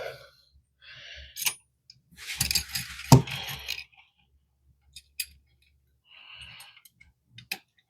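Small outlet-adjustment hardware (spacers and screws) clinking and rattling as it is handled, with several sharp clicks scattered through.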